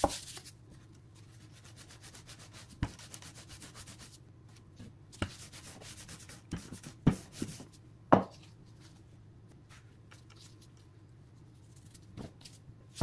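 Gözleme dough being rolled out thin with a rolling pin: soft rubbing and rolling strokes, broken by a few sharp knocks.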